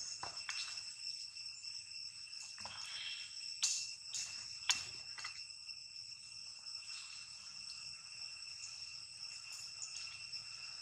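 A steady high-pitched chorus of insects trilling, with two sharp clicks about a second apart near the middle.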